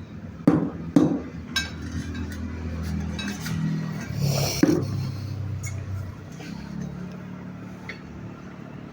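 Hard metal tools clinking and knocking as they are handled, with sharp strikes about half a second and a second in and another near the middle, over a low steady hum that fades out about six seconds in.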